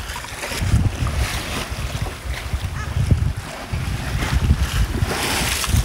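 Wind buffeting the microphone over the rush and splash of waves along the hull of a sailboat under sail, with no engine running; a louder rush of water near the end.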